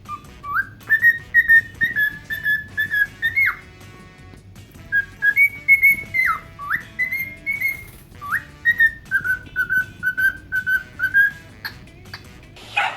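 A tune whistled in three phrases, each a run of short held notes with quick slides up and down between them.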